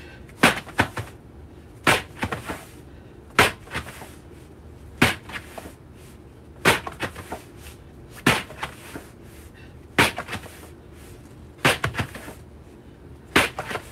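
Battle ropes slammed lightly onto the floor, a sharp smack about every second and a half, each followed by a few smaller slaps as the ropes settle.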